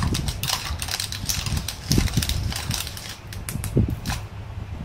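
Black pepper being crushed over a bowl of mashed potatoes: a run of irregular dry crackles and crunches, with a few soft knocks.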